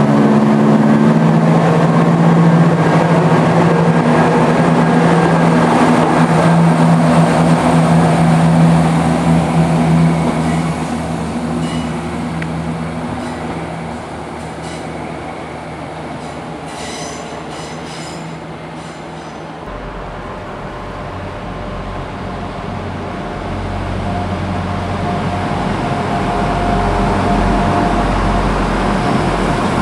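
London Midland Class 170 Turbostar diesel multiple units at a platform, their diesel engines running steadily, with wheel squeals and clicks on the rails as a unit comes in. After a cut, a second diesel multiple unit rumbles past, growing louder near the end.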